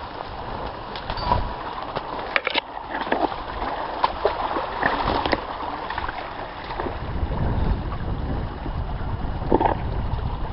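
Footsteps and brushing through undergrowth beside a running stream, with scattered sharp knocks and clicks. Wind buffets the microphone from about two-thirds of the way in.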